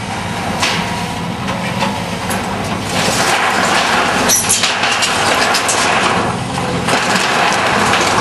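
A vehicle engine idling steadily, with a loud rushing hiss over it and a few faint knocks.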